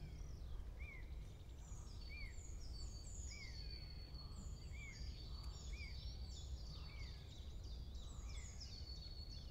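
Faint birds chirping: a short arched call repeated roughly every half-second to second, with higher, falling chirps over it and a thin steady high tone, above a low steady hum.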